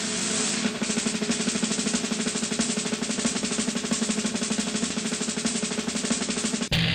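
A fast drum roll, a snare struck many times a second over a steady held low note, which cuts off abruptly near the end.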